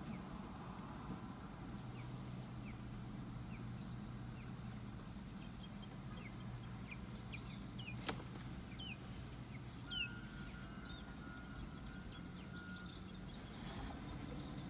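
Steady low rumble of distant road traffic, with a small bird giving short chirps every second or so. A sharp click comes about eight seconds in, and the traffic noise swells near the end.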